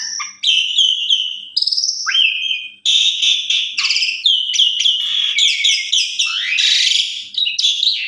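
Javan pied starling (jalak suren) singing: a fast, varied run of whistles, chirps and rising and falling slurs with hardly a pause.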